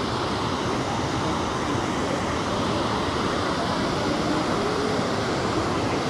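Steady rushing of a low, wide waterfall pouring over rock ledges.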